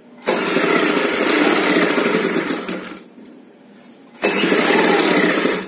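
Black straight-stitch sewing machine running in two bursts, about two and a half seconds and then about one and a half seconds, with a short stop between. It is sewing a piping strip onto blouse fabric.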